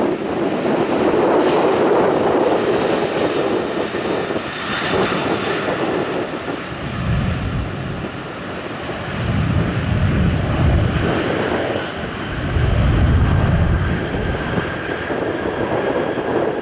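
An airplane's engines passing in a broad, steady roar with a thin high whine. Bursts of low rumble swell and fade three times in the second half.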